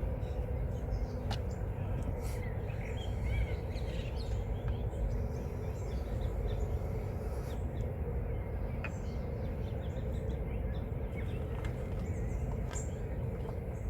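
Birds chirping and singing in short, scattered calls over a steady low outdoor rumble, with a few brief sharp ticks.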